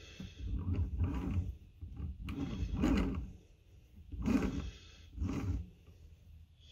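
Electric longboard wheel turned by hand about four times, the timing belt and unpowered motor rumbling briefly with each spin, to check the belt tension on a freshly tightened motor mount.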